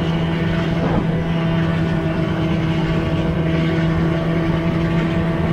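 Snowmobile engine running at a steady cruising speed, its pitch holding constant.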